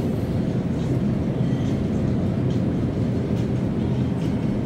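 Steady low rumble, with a few faint ticks.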